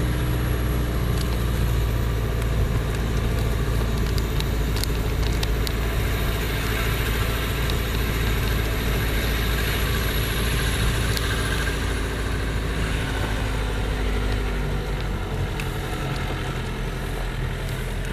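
Car engine and road noise heard from inside the cabin as the car drives slowly, a steady low hum throughout.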